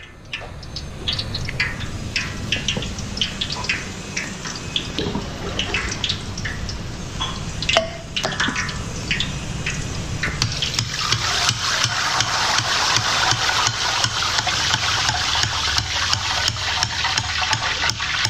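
Hot oil in a wide kadai sizzling as drops of gram-flour batter fry into tiny boondi for motichoor laddu. Scattered crackles and pops at first, then from about ten seconds in a dense, steady crackling sizzle.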